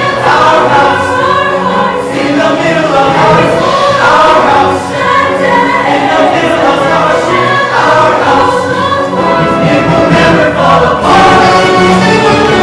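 Mixed-voice show choir singing in harmony over musical backing.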